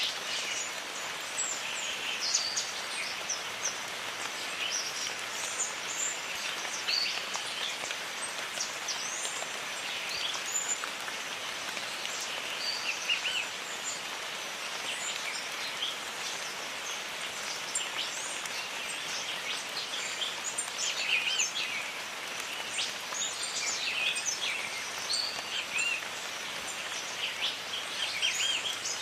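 Jungle ambience of steady rain falling, with many birds chirping and calling over it throughout.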